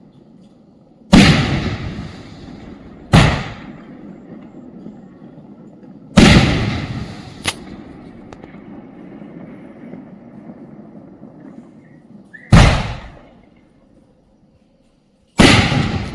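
Sonny Euro 2 56-shot firework cake firing large shells: five loud, sharp bangs a few seconds apart, each echoing away, with one small crack after the third.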